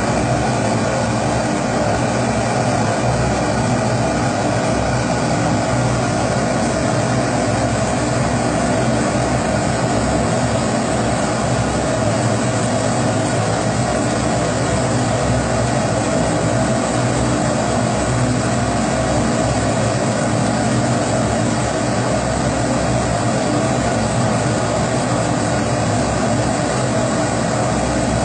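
Kerosene pressure stove (primus stove) burner burning with a steady, even rushing noise that does not change.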